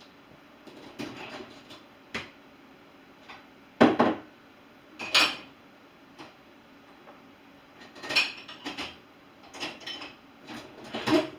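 Dishes and cutlery being loaded into a dishwasher: a string of separate knocks and clinks, the loudest clatters about four and five seconds in and again near the end.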